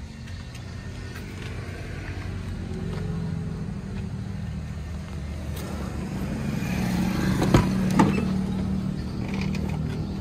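Hyundai HD120 truck's diesel engine idling with a steady low hum that grows louder over the first eight seconds. About three-quarters of the way through come two sharp clacks as the cab door is opened.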